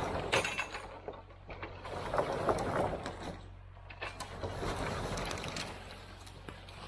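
A bundle of logs hung from a Maxwald cable-logging carriage is winched along the skyline, its trailing ends scraping and crackling through the forest floor in uneven surges over a steady low hum.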